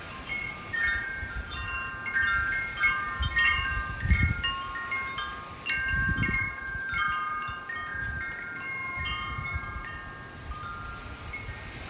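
Wind chimes ringing in gusty wind, many overlapping tones struck irregularly and fading slowly. Gusts buffet the microphone in low rumbles, strongest about four and six seconds in.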